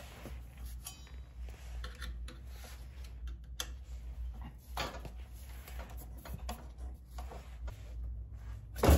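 Scattered light metallic clinks and knocks as an aftermarket Tomei exhaust is worked free of its hangers and brackets, with one sharp, loud knock near the end.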